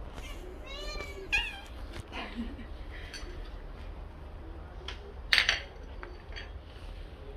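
Siamese cats meowing for food, with a few pitch-bending meows in the first two seconds, one of them loud. Past the middle comes a short, sharp clack, the loudest sound, as a ceramic plate is set down on the tile floor.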